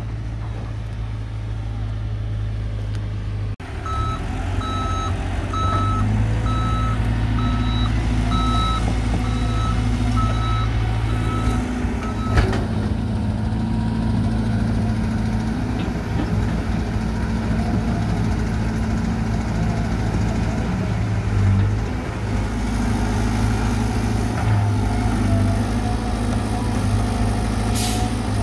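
Heavy diesel earthmoving machinery running steadily. A reversing alarm beeps at an even pace, a little under a second apart, from a few seconds in until about twelve seconds in. A single sharp knock sounds as the beeping stops.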